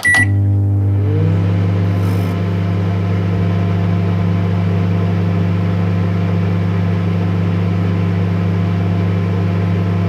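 Microwave oven running: a steady, loud electric hum with a low drone, opening with a short high beep and a click, and a tone that rises and then holds steady about a second in as it gets up to speed.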